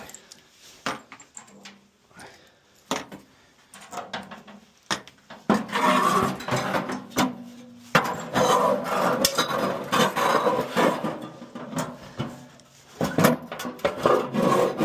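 Hands and tools working on a furnace's sheet-metal blower compartment: scattered knocks and clicks, then long stretches of scraping and rattling metal about five seconds in and again near the end.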